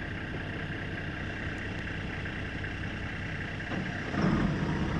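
Motor vehicle engine running steadily, growing louder about four seconds in.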